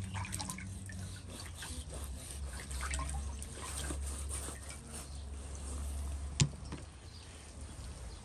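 A knife slicing through raw beef on a wooden chopping stump, with small wet, sticky clicks as the meat is cut and pulled apart, and one sharp knock a little past six seconds in.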